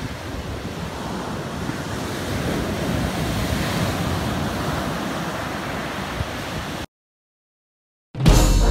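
Ocean surf breaking and washing up onto a sand beach, a steady rushing that cuts off suddenly about seven seconds in. After a second of silence, loud music starts just before the end.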